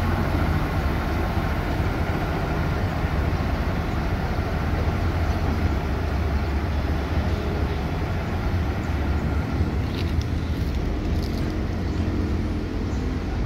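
Diesel engine of a small railway shunting locomotive running with a steady low rumble, with a few faint brief clicks about ten seconds in.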